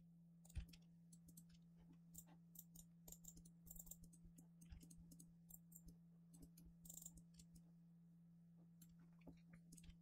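Near silence: faint, scattered computer mouse and keyboard clicks over a low steady hum, the most noticeable click just over half a second in.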